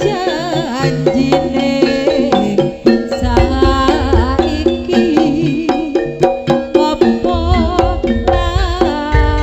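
Javanese traditional dance music: hand drums and struck percussion under steady held notes and a wavering melody line, with a heavy low-pitched swell setting in about three seconds in and again near the end.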